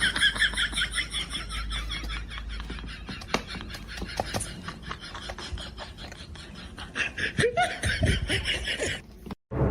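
Laughter, a fast high-pitched run over the first four seconds or so, then quieter, with a short voice sound about eight seconds in. It cuts off abruptly just before the end.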